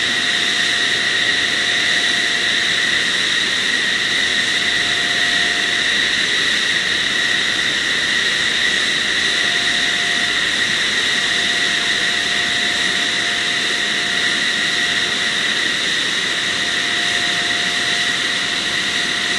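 The KAAN fighter's twin General Electric F110 turbofan engines running steadily on the ground: a loud jet rush with a high, steady whine.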